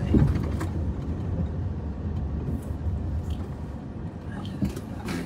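Car driving slowly over a rough dirt track, heard from inside the cabin: a steady low rumble of engine and tyres, with a few sharp knocks and rattles from the uneven ground.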